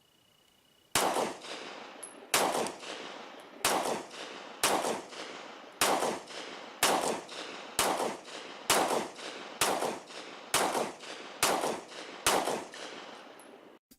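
Glock 43 9mm pistol firing twelve single shots, about one a second, each with a short echoing tail. The pistol cycles through a full 12-round ETS extended magazine without a malfunction.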